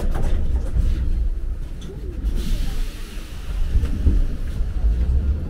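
Low rumble inside a metro carriage as the train runs, with a short hiss about halfway through.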